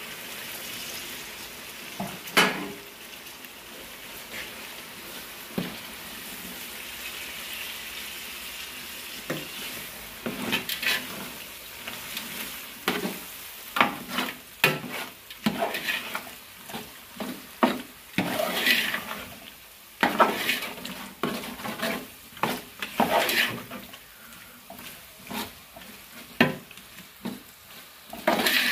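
Tomatoes and green chillies sizzling in hot oil in a large metal pot. From about ten seconds in, a metal ladle stirs the masala, scraping and knocking against the pot again and again.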